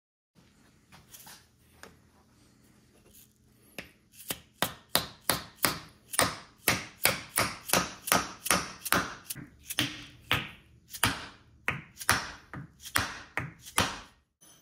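Mallet knocking a wooden block to drive a wooden wedge down into the slot in the top of an axe handle, seating the head: an even run of sharp knocks, about two to three a second, starting about four seconds in, after faint handling noise.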